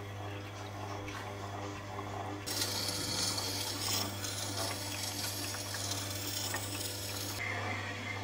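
Wood lathe running with a steady hum. About two and a half seconds in, a turning tool starts cutting the spinning pine with a loud shaving hiss, which stops suddenly near the end.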